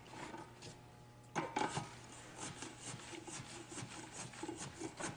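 Steel forking tool plunged again and again into dry granular refractory mix packed around a furnace crucible. Starting about a second and a half in, it makes a rapid series of gritty scraping and rasping strokes, several a second. This is the de-airing step that settles the layer before ramming.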